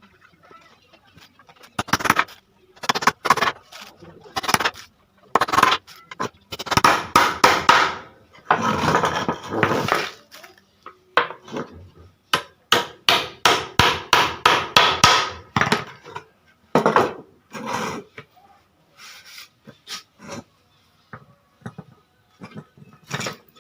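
A hammer driving nails into wooden boards in several runs of quick blows, about three or four a second at the fastest, with a short continuous rough noise about nine seconds in.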